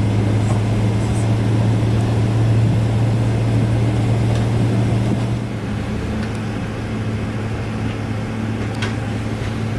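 Steady low drone of the Boeing 777-300ER's cabin air and ventilation during pushback. A little past halfway it drops noticeably quieter, as when the air-conditioning packs are shut off for engine start. A faint click comes near the end.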